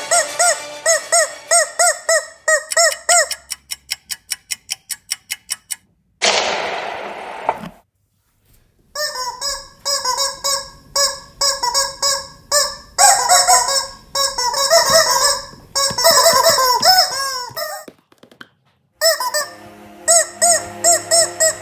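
Squeaky rubber chicken toys squeezed over and over, honking squeaks at about two a second. Partway through, a quick run of ticks, then a short blast of noise falling away, about a second of silence, then a long, busy stretch of overlapping squeaks.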